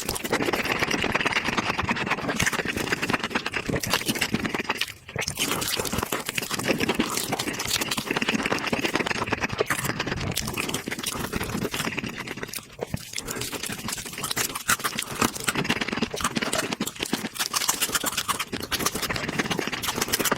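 Close-up chewing and crunching of crispy fried chicken, a dense run of crackling bites that drops out briefly twice.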